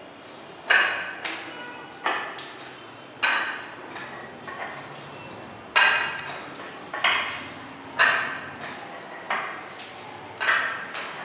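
Footsteps in spiked shoes on a wet epoxy floor coating, about one step a second, each a sharp click with a short echo.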